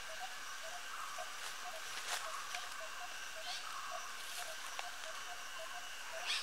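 Forest ambience: a steady hiss of insects, with a small animal repeating a short two-pitch call about four times a second throughout. A few sharp clicks come through, the loudest near the end.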